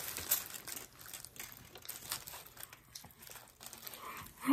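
Close-miked eating sounds: chewing a burrito, with a foil wrapper crinkling in irregular small clicks and crackles. A short hummed voice sound comes in right at the end.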